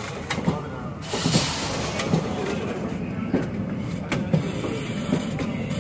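Passenger train running, with a steady rumble and irregular sharp knocks of the wheels over rail joints; it gets louder about a second in.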